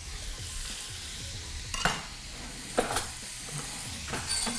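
Chopped onion, celery and garlic sizzling as they fry in butter and Maltese sausage fat in a pot, stirred with a utensil that knocks against the pot about two, three and four seconds in.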